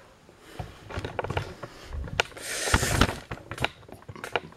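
Handling noises close to the microphone: a string of sharp clicks and knocks, with a burst of rustling a little past the middle.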